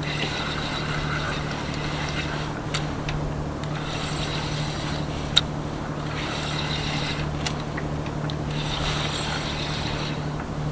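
Spinning reel cranked in four bursts of one to two seconds each while a hooked fish is reeled in, with a few sharp clicks, the loudest about five seconds in. Under it, the steady hum of the small motorboat's engine running at idle.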